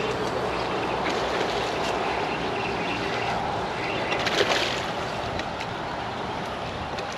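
Hooked fish splashing and thrashing at the surface close to the bank, with a brief louder splash about four and a half seconds in, over a steady rushing noise.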